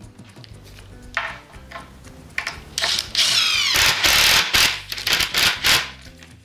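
Cordless Makita driver with a no. 3 Allen bit driving Allen-head screws into a cabinet carcass. It runs in several short bursts, spinning up with a rising whine about three seconds in, then running hard for a second or so before a few more short bursts.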